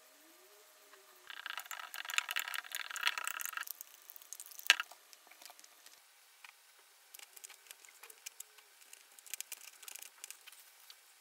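Kitchen handling noises: about two seconds of dense rattling and scraping early on, a single sharp click, then scattered light taps and rustles as raw cod fillets are handled on a paper-lined board.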